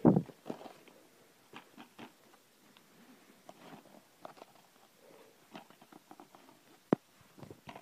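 A plastic DVD case handled in the hands: scattered small clicks and rubbing, with a loud thump at the start and a single sharp click near the end.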